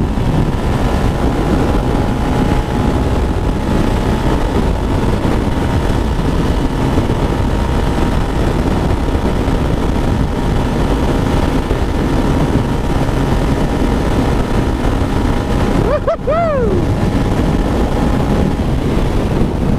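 Underbone motorcycle cruising at speed, its engine running steadily under wind rush on the camera's microphone. About sixteen seconds in, a short rising-then-falling tone cuts through.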